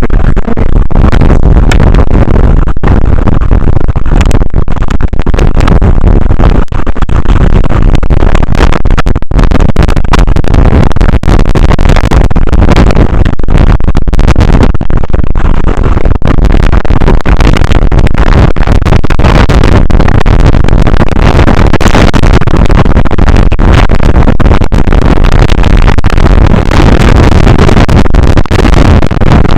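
Strong wind buffeting the microphone: a loud, constant low rumble near full scale, distorted and cutting out for split seconds again and again.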